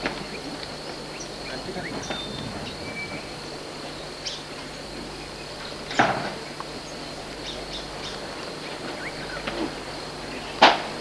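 Outdoor bush ambience: a steady high hiss with a few faint bird chirps, broken by two sharp knocks, one about six seconds in and a louder one near the end.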